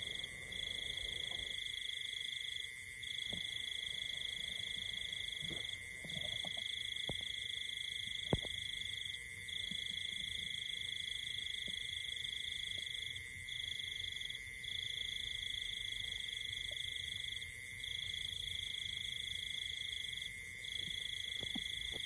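Insects droning in a steady chorus: a continuous high-pitched whine at two pitches, the higher one cutting out briefly every couple of seconds, with a sharp click about eight seconds in.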